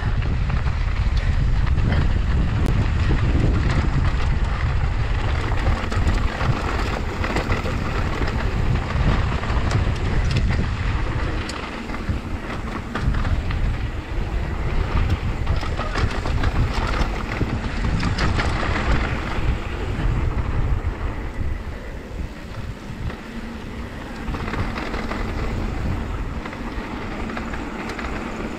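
Wind buffeting the microphone and knobby mountain-bike tyres rolling over a dry dirt trail on a fast downhill run, with scattered clicks and rattles from the bike. The wind rumble is heaviest for the first dozen seconds, then eases.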